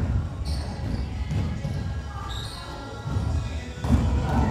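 A song playing from an SD card through a rack-mount Bluetooth pre-amplifier into the PA mixer, with a heavy, pulsing bass beat.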